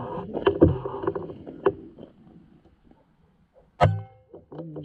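Rustling and handling noise, then quiet, then a single shot from a PCP air rifle about four seconds in: a sharp crack with a low thump.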